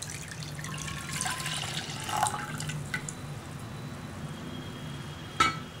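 Coconut milk poured into a nonstick pan, splashing and gurgling for the first three seconds or so, then settling. A single sharp knock near the end.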